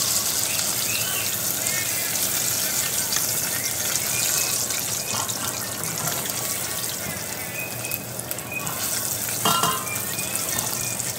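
Breaded fish pieces deep-frying in hot oil in a pan, a steady crackling sizzle, while the pieces are turned with a slotted spatula. A brief knock sounds about nine and a half seconds in.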